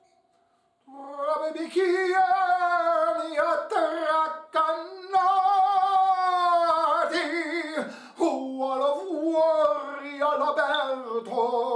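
A man singing in an operatic tenor voice with a wide vibrato, holding long notes that slide between pitches. It starts about a second in, with short breaks for breath.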